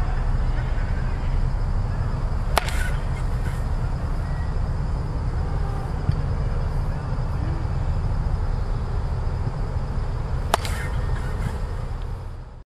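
A baseball bat hitting a ball off a batting tee: two sharp cracks, one about two and a half seconds in and one near the end, about eight seconds apart, over a steady low rumble.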